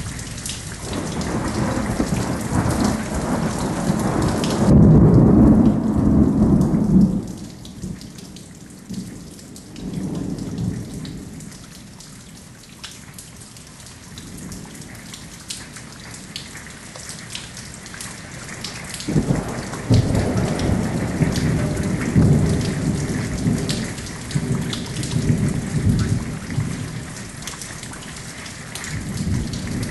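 Thunderstorm: rain pattering steadily while thunder rolls. One long rumble builds over the first several seconds and fades about seven seconds in, and a second long roll of thunder comes about two-thirds of the way through.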